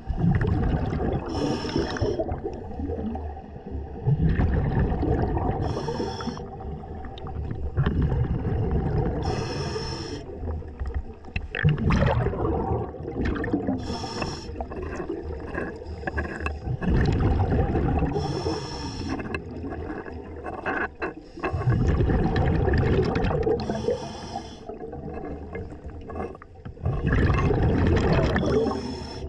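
Underwater sound of a scuba diver breathing through a regulator, with a rush of exhaled bubbles about every four to five seconds.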